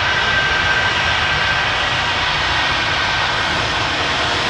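Boeing 737 MAX 8's twin CFM LEAP-1B jet engines running at taxi power: a steady jet rumble with a high whine that fades about two seconds in.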